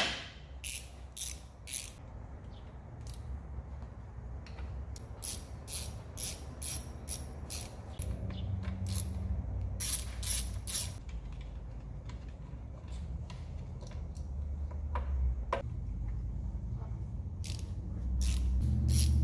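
Hand ratchet wrench clicking in short runs as valve cover bolts are backed out on a Chevy 5.3 LS V8.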